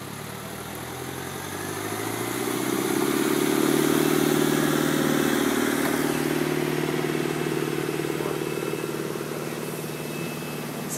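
Farm tractor's diesel engine running under load as it hauls a small fishing boat up the beach; it grows louder over the first few seconds, then slowly eases off.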